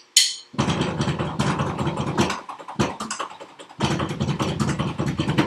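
The last stick click of a four-click count-in, then a fast, dense clatter of sticks striking electronic drum pads, with short breaks near the middle. The pads are heard unamplified, like a rapid game of ping pong, because the drum sound itself goes only through a mixer to headphones.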